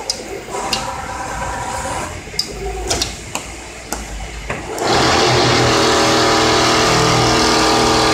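Richpeace automatic template sewing machine stitching, with light clicks at first; about five seconds in, a much louder steady whirring buzz sets in for about three seconds and then cuts off suddenly.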